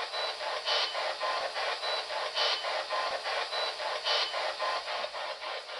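A short, heavily filtered recording of a supposed ghost voice answering 'sí', replayed over and over as an EVP (electronic voice phenomenon). It is thin and hissy, with no low end, and the same faint pattern comes back roughly every second and a half.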